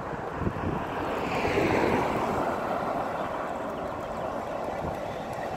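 Road traffic: a passing vehicle's tyre and engine noise swells to a peak about two seconds in, then eases, with wind on the microphone.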